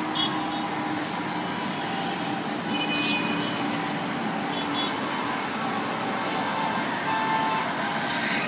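Steady city street traffic noise, with a few short, thin high tones like car horns sounding here and there.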